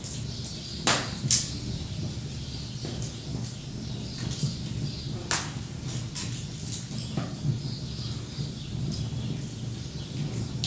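Wood fire crackling in a fireplace: a steady fine crackle over a low rumble, with two sharp pops close together about a second in and another just past the middle.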